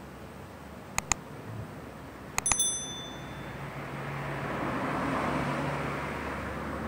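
Sound effects of a subscribe-button animation: two quick clicks about a second in, then two more clicks with a short bell ding about two and a half seconds in, the ding fading over about a second. A soft rushing noise then swells and eases off.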